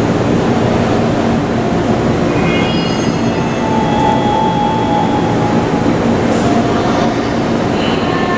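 A JR East 209-series electric train standing at an underground platform, with a steady rumble and hum. A few short high tones sound a couple of seconds in, followed by a held mid-pitched tone.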